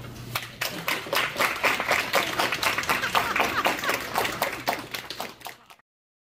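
A small group of people clapping, a dense patter of hand claps that tails off and cuts off abruptly near the end.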